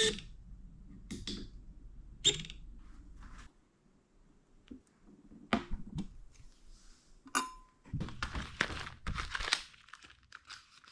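Hand work on a bicycle: several sharp clicks and light knocks from tools and metal parts, one with a short metallic ping, then a crinkling rustle like plastic packaging being handled near the end.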